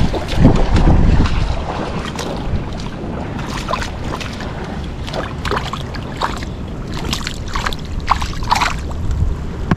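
Wind rushing on the microphone over water, with a strong gust about half a second in.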